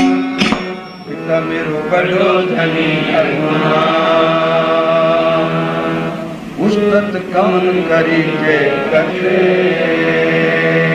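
Sikh devotional kirtan: a voice singing a shabad in long, drawn-out held notes with melodic bends, over steady musical accompaniment.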